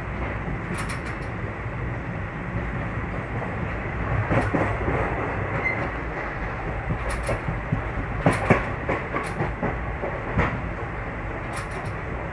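A train running on the rails: a steady rumble, broken by irregular sharp clacks of the wheels over rail joints, loudest a little after eight seconds in.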